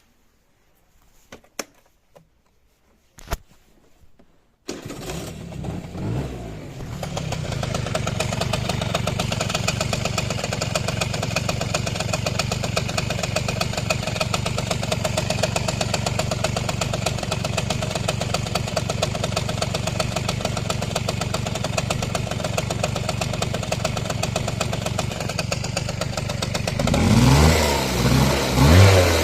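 A few clicks, then an engine with a variator (CVT) starts about five seconds in and idles with a rapid, even knock. Near the end it is revved. The knock comes from the variator side.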